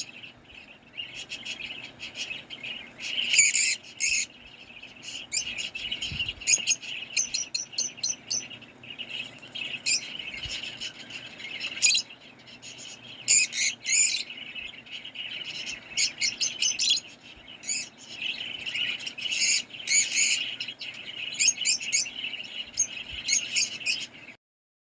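Lovebirds chattering: a steady run of short, shrill chirps and squeaks, many in quick series, overlapping one another. The sound cuts off suddenly near the end.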